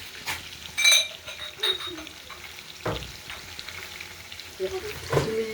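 Chicken roast sizzling as it fries in a pan and is stirred, with a metal utensil clinking sharply against the pan about a second in.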